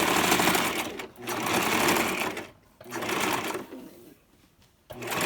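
Electric sewing machine stitching in short runs, stopping and starting every second or so as a wig track is backstitched, with a pause of about a second before the last run starts near the end.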